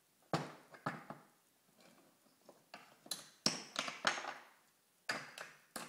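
Wooden toy train pieces knocking and clacking together as a child handles them, in several separate bursts of sharp clicks and knocks.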